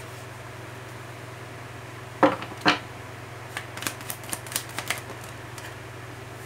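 Tarot cards being shuffled and handled: two sharp slaps of the deck a little over two seconds in, then a quick run of light card flicks and clicks.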